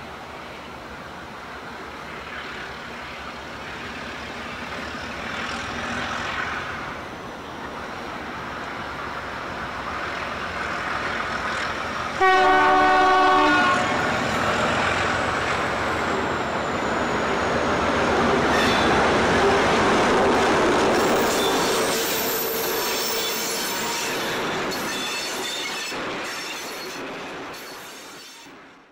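Alco diesel locomotive 844 approaching under power, its engine growing steadily louder. About twelve seconds in it sounds one loud horn blast lasting about a second and a half. It passes with the engine at its loudest, then its steel passenger carriages follow with wheels clicking over the rail joints as the sound fades away.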